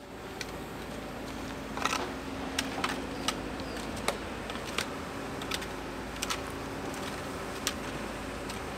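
Long-handled hoes chopping and scraping into wet clay and stones, giving sharp irregular clicks and knocks about once or twice a second, over a steady low hum.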